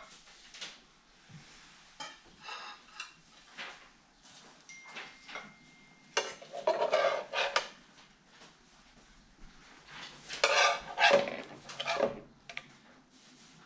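Dishes and utensils clattering and scraping on plates and a pan in short, separate spells, the two loudest and longest about six and ten seconds in.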